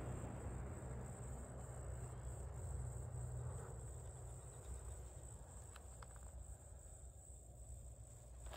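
Insects chirring steadily on one high note, over a low steady rumble.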